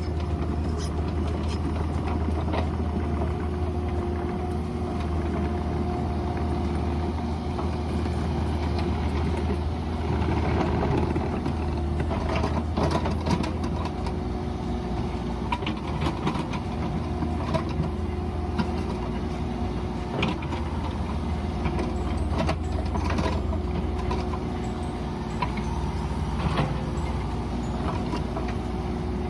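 Mini excavator's engine running steadily, with scattered knocks and clicks of the digging work over it.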